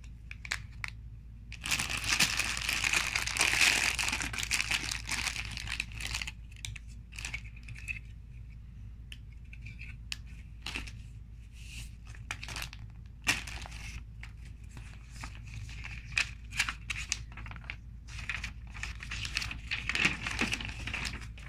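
Clear plastic bags of LEGO bricks and paper inserts crinkling and rustling as they are handled, in scattered handfuls of crackles. The densest crinkling is a few seconds in, and a printed booklet rustles as it is flipped near the end.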